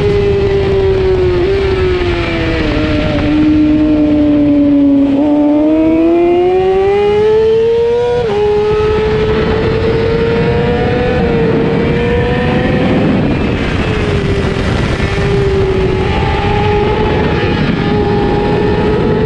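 A 600cc race bike's engine at high revs, heard from the bike itself over heavy wind rush. The engine note falls over the first five seconds as the bike slows, with a small jump about one and a half seconds in, then climbs as it accelerates. It drops sharply at a gear change a little after eight seconds and then holds fairly steady.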